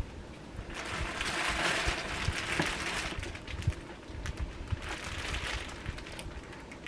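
Clear plastic bag rustling and crinkling as a backpack wrapped in it is handled and lifted out of a cardboard box, in two bouts with small clicks and taps.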